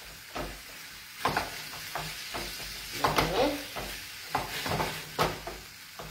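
Nervetti and cherry tomatoes sizzling in a metal frying pan while being stirred, the spoon scraping and knocking against the pan every second or so.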